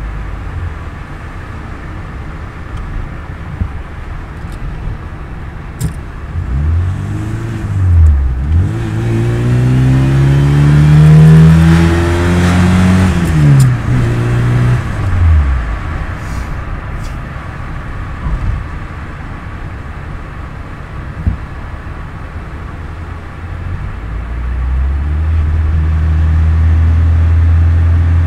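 Wartburg 353's swapped-in, longitudinally mounted 1.3-litre engine, heard from inside the cabin, revving up through the gears, with the pitch dropping at the shifts about 8 and 12 seconds in, then easing off. It settles into a lower steady drone and grows louder again near the end.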